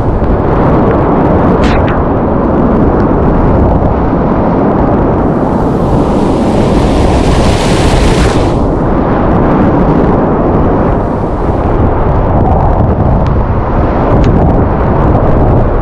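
Whitewater rapids rushing loudly around a kayak, with a low rumble of turbulent water close on the microphone. About five seconds in, a louder hissing rush lasting a few seconds as the boat punches through a breaking wave and is buried in spray, with a few brief splashes here and there.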